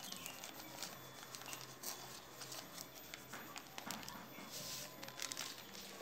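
Powdered detergent being tipped from a small plastic sachet into a top-loading washing machine's detergent dispenser: the plastic packet crinkles in the hand and the powder trickles out with a run of small irregular crackles.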